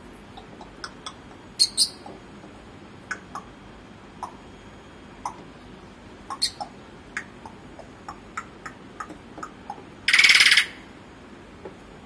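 African grey parrot making a scatter of short clicks and brief chirps, with one harsh squawk lasting about half a second near the end.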